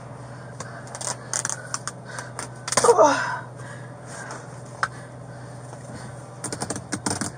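Scattered clicks and knocks over a steady low hum, with a short cry falling in pitch about three seconds in and a quick cluster of clicks near the end.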